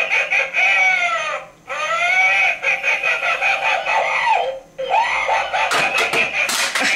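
Tinny electronic voice from a Halloween animatronic prop's small speaker, in repeated high, warbling phrases about a second and a half long, with a few sharp clicks near the end.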